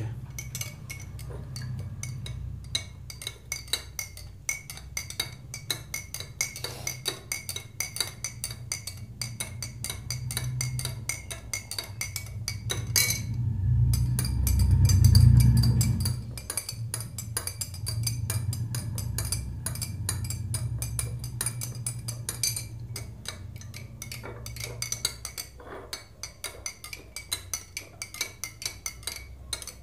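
Steel spoons stirring in two drinking glasses of water, clinking rapidly and continuously against the glass, which rings faintly. A low rumble swells up about halfway through.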